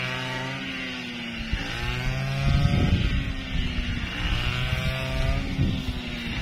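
A small engine running, its pitch slowly rising and falling every couple of seconds.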